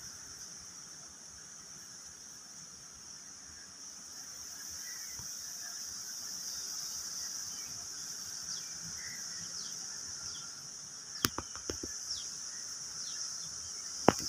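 Steady high-pitched insect chorus outdoors, with faint short bird chirps over it and a few sharp clicks near the end.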